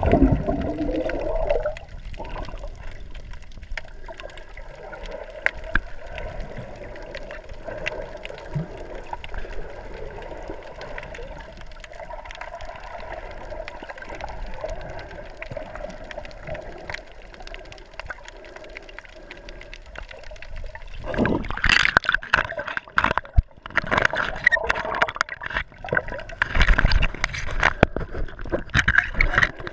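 Underwater water noise heard through a camera housing: a loud rush of water at the start, then a steady wash flecked with small clicks. From about 21 seconds in come loud, irregular splashing and bubbling as a swimmer kicks close to the camera.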